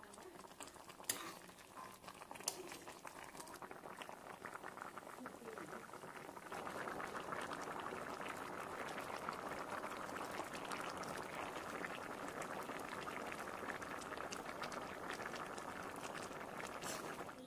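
Ash gourd curry bubbling in a pan, with a spoon clinking against the pan twice in the first few seconds while it is stirred. About six seconds in the bubbling becomes louder, a steady rolling boil, and it stops abruptly near the end.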